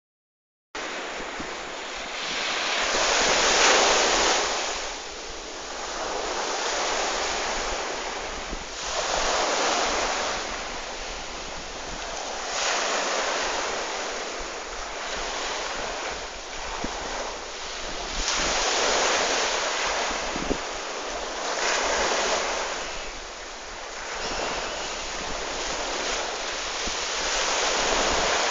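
Surf washing onto a shore, swelling and falling every few seconds.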